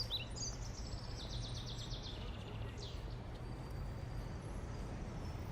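A songbird singing a rapid, high trill that steps down in pitch partway through, then a single short chirp, over a steady low rumble.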